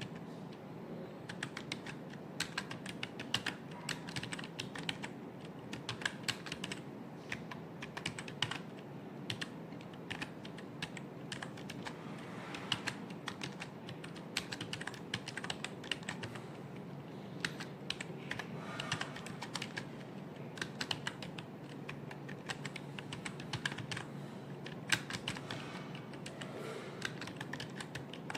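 Continuous typing on a computer keyboard: a fast, irregular patter of keystrokes over a steady low hum.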